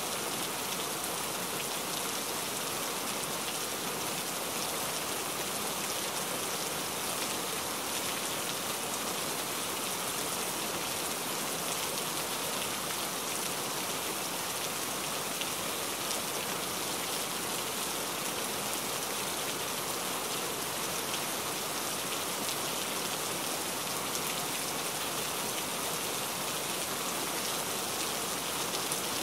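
Steady, even hiss like rain falling.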